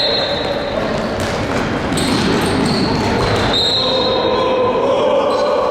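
Handball being played on an indoor court: the ball bouncing on the floor and players' footsteps, echoing in the hall, with a steady hum underneath.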